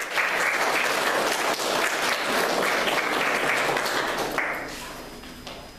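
Audience applauding: steady clapping for about four seconds that then dies away.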